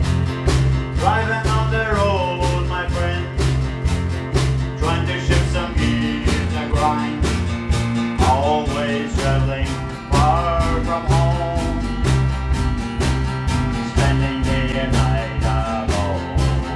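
Intro music with a steady drum beat, a repeating bass line and a melody on top.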